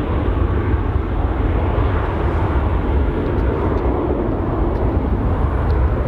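Steady deep rumble of a Boeing 737-700's CFM56-7B jet engines under takeoff power.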